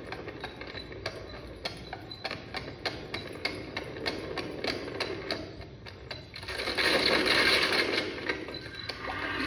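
Mixed horse-and-trap sound effect played back over loudspeakers: galloping hoofbeats and trap wheels making a fast, uneven run of clattering clicks over a low rumble. A loud rushing swell rises about two-thirds of the way in and falls away near the end.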